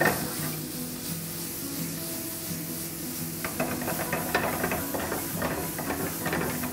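Food frying in a pan with seasoned butter, sizzling steadily. There is a sharp knock at the start, and a utensil clinks and scrapes in the pan from about halfway.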